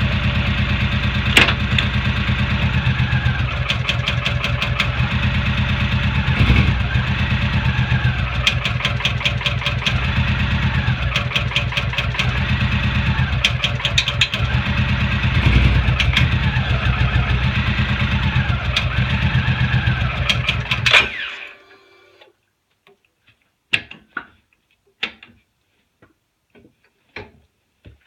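Suzuki Boulevard C90T's V-twin engine running at low revs with rapid clicking from the transmission as the clutch is let out without throttle, close to stalling; the owner is unsure whether this is a fault or only the engine lugging. The engine cuts out about 21 seconds in, followed by a few separate sharp knocks.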